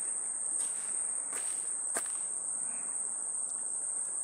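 Insects shrilling in a continuous high-pitched drone, with a few sharp clicks, the loudest about two seconds in.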